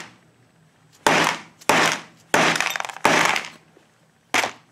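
A hammer striking the spine of a knife blade five times, driving it through soft pure lead on a wooden block to cut shot. The blows are sharp and come about two-thirds of a second apart, with a longer pause before the last.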